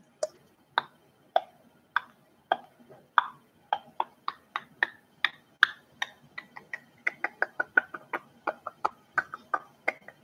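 A series of short, sharp snapping clicks, nearly two a second at first, quickening after about three seconds to three or four a second.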